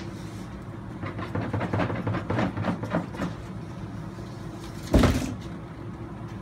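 Off-camera handling noises: a run of light knocks and rustles, then one heavy thump about five seconds in, over a steady low room hum.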